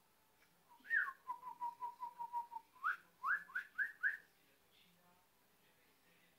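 Clear whistling: a note falls about a second in, then comes a quick run of about eight short notes on one pitch, then four quick rising swoops, ending a little after four seconds in.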